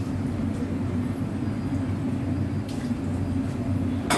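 Steady low machine hum, with a single sharp click near the end.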